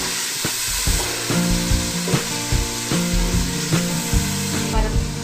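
Spiced onion and ginger-garlic masala sizzling in hot oil in an aluminium pot while a wooden spoon stirs it, scraping and knocking against the pot at uneven intervals.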